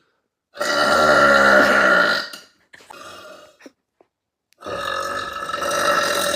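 A girl burping loudly twice. First comes one long, pitched burp of about two seconds, then a fainter short sound, and about four and a half seconds in a second long burp begins.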